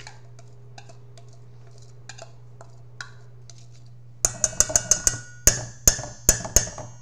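Glass bowl knocked against a stainless steel mixing bowl to get the seasoning mix out: about a dozen sharp, ringing clinks in quick succession, starting about four seconds in. Before them there are only a few faint light ticks.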